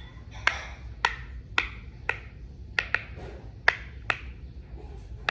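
Silicone heart-shaped pop-it fidget toy, its bubbles pressed one after another on the good side, giving about nine sharp pops at irregular intervals of roughly half a second.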